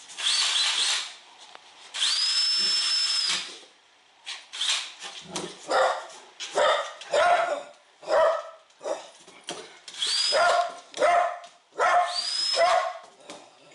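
A cordless 18-volt Snap-on drill is run in several short bursts, its motor whining up to speed and stopping each time. In between, a large dog barks repeatedly in quick, excited barks at the drill.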